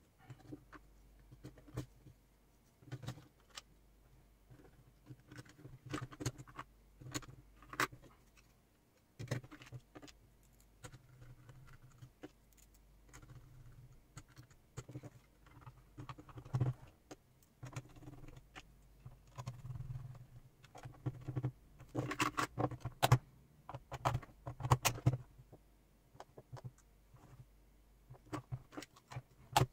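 Irregular small clicks, taps and light rattles of a Hantek 2D72 handheld oscilloscope's circuit boards and plastic case being handled and fitted back together, busiest about three-quarters of the way through.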